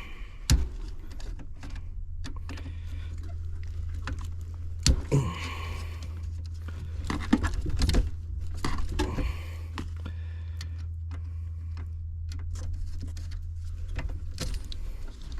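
Scattered clicks and light rattles of hand tools and wire terminals being handled while a contactor is swapped, over a steady low hum.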